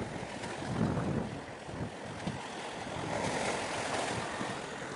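Wind gusting on the microphone over a steady wash of sea noise that swells a little about three seconds in.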